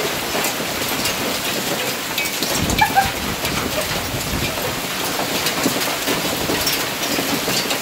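Hailstorm: hailstones falling steadily on gravel, block walls and plants, a dense run of small sharp ticks over a constant hiss. A brief low rumble comes about three seconds in.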